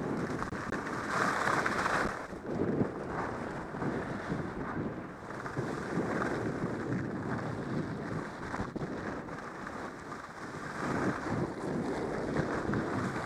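Wind rushing over the microphone of a skier's head-mounted camera, mixed with skis sliding and scraping over hard-packed groomed snow. The noise is steady but rises and falls unevenly.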